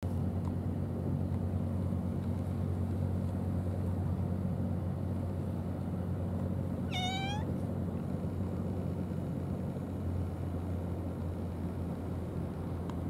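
A domestic cat meows once, a short call rising slightly in pitch about seven seconds in, over a steady low rumble.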